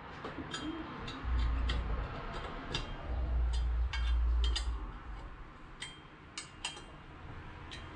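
Small metal bolts and nuts clicking and clinking by hand against a wastegate flange, irregular light ticks throughout. A low rumble comes in twice, about a second in and again around three to nearly five seconds.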